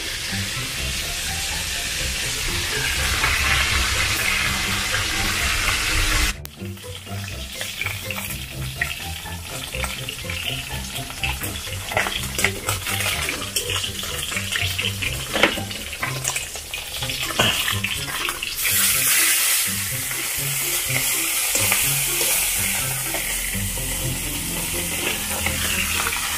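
Fish frying in hot oil in a wok over a wood fire: steady sizzling with sharp spits and the clicks of tongs turning the fish. The sizzle swells loudest for a few seconds past the middle. A different steady hiss at the start cuts off abruptly about six seconds in.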